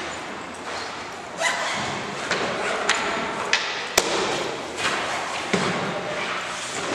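Books and notebooks being packed into fabric backpacks: continuous rustling with several light knocks and thumps, the sharpest about four seconds in.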